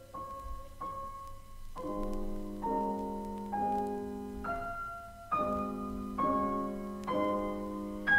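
Piano playing alone in a classical art-song recording: a few single notes, then full chords struck about once a second, each left to ring.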